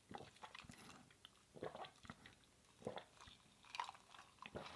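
Faint gulps and wet mouth sounds of someone drinking, a few soft swallows about a second apart with small clicks between them.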